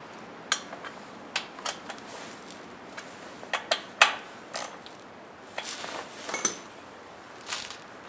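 Irregular metal clinks and taps of hand tools and bolts as the recoil starter housing is fitted back onto a small engine, the sharpest clink about four seconds in.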